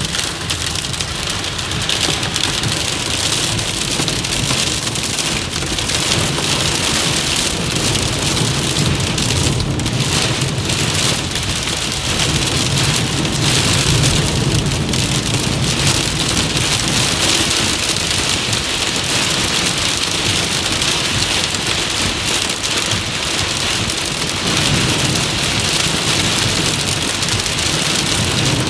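Heavy rain pelting a car's roof and windshield, heard from inside the cabin: a loud, steady, dense hiss with a low rumble swelling underneath at times.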